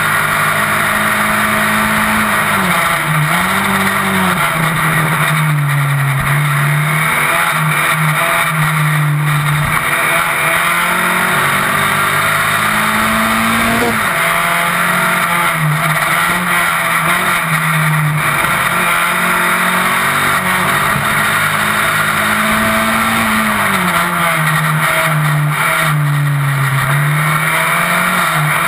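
Onboard sound of an open-wheel single-seater racing car's engine at race pace. Its pitch climbs and falls again and again, with a sudden drop about halfway through.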